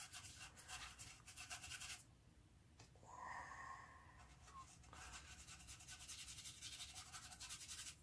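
Faint, rapid scratching of a paintbrush's bristles stroking black acrylic craft paint onto carved wood, stopping for a couple of seconds in the middle, when a brief faint tone is heard, then resuming.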